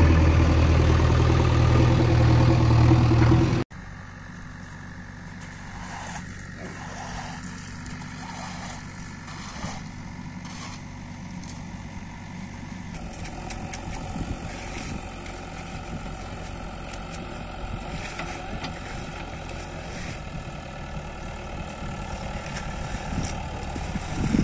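JCB 3DX backhoe loader's diesel engine running: loud and close for the first few seconds, then, after a sudden cut, a steady and much fainter drone from the machine working further off.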